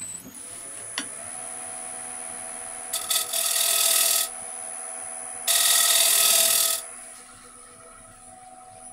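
Wood lathe starting and spinning up over the first second, then running with a steady whine. A turning tool cuts into the spinning wooden plate twice, each cut a loud hissing scrape lasting a little over a second.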